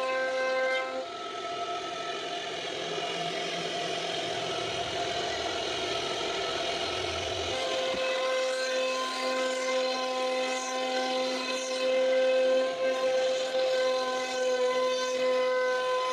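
CNC router spindle running with a steady high whine while the cutter routes grooves in a wooden door panel, with rough cutting noise under it. The sound changes abruptly about halfway through and settles back to a clean, steady whine.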